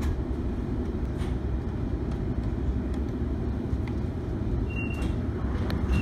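Suburban electric train heard from inside the carriage as it pulls into a station: a steady low rumble with faint scattered clicks, and two short high-pitched beeps near the end.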